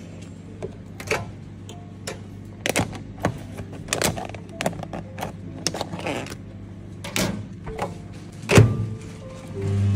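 A plastic food tub and a stainless-steel Daewoo commercial microwave being handled: a string of clicks and knocks, with a heavier thump a little after 8.5 seconds in, like the door being shut. Near the end the microwave starts running with a loud, steady hum.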